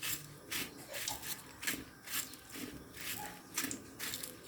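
Chicken pieces being pressed and turned in dry breadcrumbs: a run of short rustling, scraping strokes, about one or two a second.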